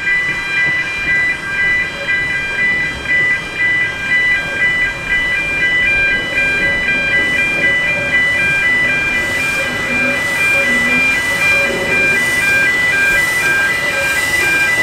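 Level crossing warning alarm sounding continuously, a repeating pattern of high electronic tones. In the second half the low sound of the NGG16 Garratt steam locomotive creeping up to the crossing grows under it.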